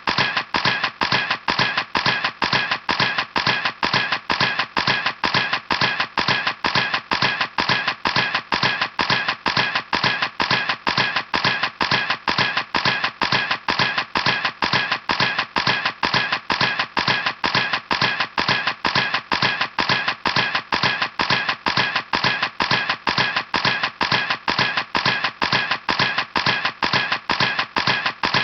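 Camera shutter clicking over and over in an even rhythm, about three clicks a second.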